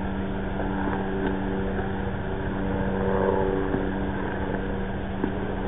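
A steady mechanical hum, like a motor running, with fixed-pitch tones over a low rumble, briefly rising and falling about three seconds in.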